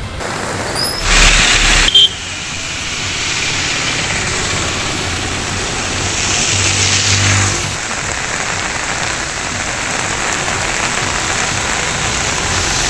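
Heavy rain on a wet road with motor vehicles driving past. A loud burst of noise comes about a second in and cuts off sharply, and a vehicle passes with a low engine hum a little past the middle.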